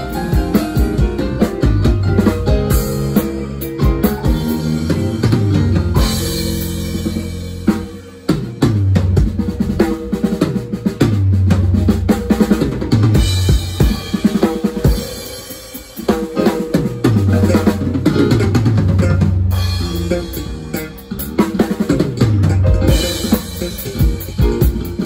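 A live band playing an instrumental, with the drum kit out front: steady kick drum, snare and rimshots over a gliding bass line, with brief breaks into fills about eight and sixteen seconds in.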